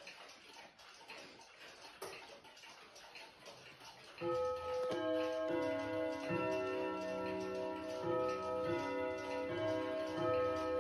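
Pendulum clocks ticking, then about four seconds in the Vedette chiming wall clock begins its nine o'clock hour chime: a melody of struck, ringing notes that overlap and sustain over the ticking.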